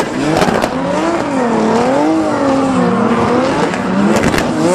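Several drift cars sliding in tandem on tarmac, engines revving up and down with steady tyre noise from the smoking tyres. A few sharp cracks come about half a second in and again near the end.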